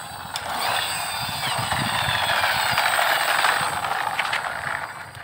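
A plastic toy army truck rolling across rough concrete after being pushed and released, its wheels and gearing making a whirring rattle that builds, then fades over the last second or two as it rolls away.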